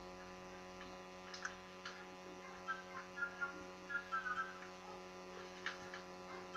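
Pet meerkat giving short, repeated soft chirping calls over a steady electrical hum, with a few faint clicks.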